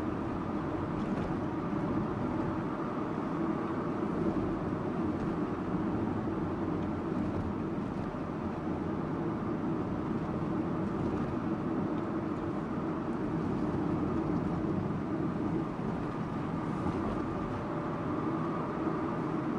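Subaru Impreza Sports Wagon (GG2) driving at a steady speed: an even drone of its boxer engine mixed with tyre and road noise, with no change in pace.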